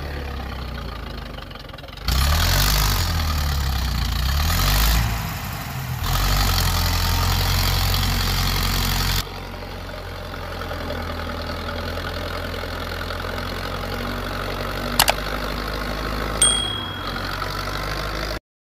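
A motor running steadily with a low rumble, louder and rougher between about two and nine seconds in. A sharp click about fifteen seconds in and a short high ding a second later; the sound cuts off suddenly just before the end.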